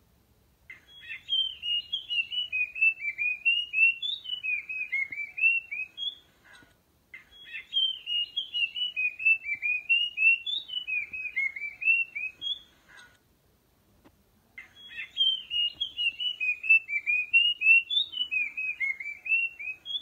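Puff-throated babbler singing: a rapid run of short slurred whistled notes, about four a second, rising and falling in pitch. It comes in three bouts of about six seconds, with short pauses between them.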